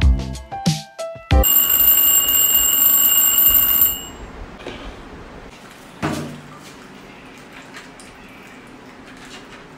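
Alarm clock ringing with a steady, continuous bell for about two and a half seconds. It starts about a second and a half in, just as a short stretch of music ends. Quiet room noise follows, with a single knock about six seconds in.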